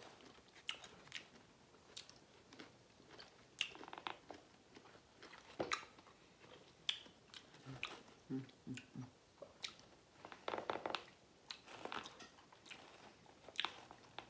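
Close-up mouth sounds of eating: quiet chewing with scattered wet lip smacks and clicks, along with fingers handling the buttery food.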